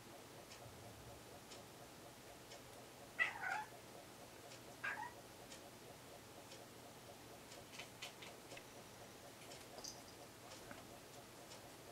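Ginger-and-white domestic cat giving two short meows about a second and a half apart, calling up at a moth it is watching out of reach.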